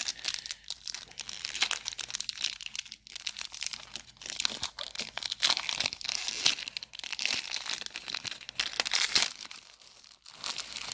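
Packaging crinkling and rustling as it is handled and opened during an unboxing, in a dense run of irregular crackles that dies down briefly near the end.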